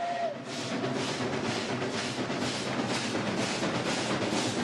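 Steam locomotive working hard: its whistle cuts off just after the start, then a run of quick, even exhaust chuffs, several a second.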